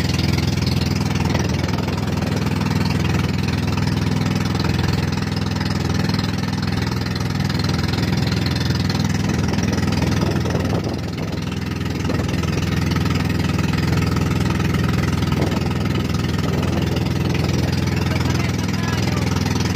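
Motorized outrigger boat's engine running steadily while the boat is under way, with a slight dip in level about halfway through.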